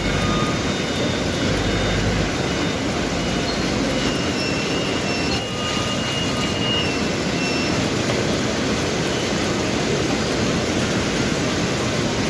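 Paper bag making machine running, a loud steady mechanical din with a few faint short high tones near the middle.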